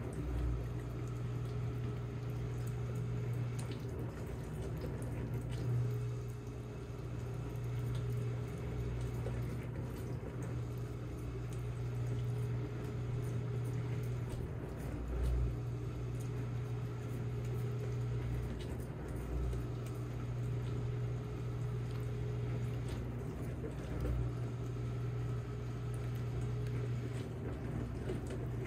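Cats licking pumpkin off a plastic spoon: small wet licking sounds over a steady low hum, with a few soft low thumps.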